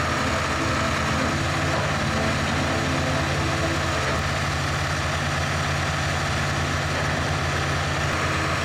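Heavy diesel engine running steadily at an unchanging speed and level.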